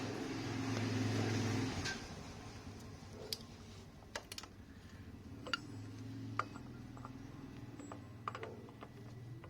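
A small motor humming steadily, louder for the first couple of seconds, with scattered sharp clicks.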